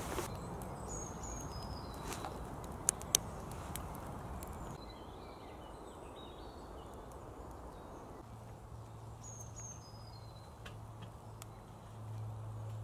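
Woodland birds chirping and singing through a quiet outdoor background, with a few sharp cracks from a small campfire of birch logs and twigs in the first few seconds, two of them loudest about three seconds in. A low steady hum comes in about eight seconds in and grows louder near the end.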